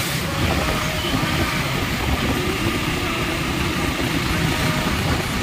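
Motorcycle on the move: its engine runs steadily under a constant rush of wind and road noise on the rider's microphone.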